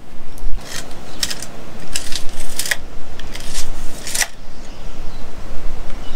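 A run of short, sharp scratching and clicking strokes, about seven in the first four seconds and then quieter, from hand work with a tape measure and pencil while measuring and marking out pieces.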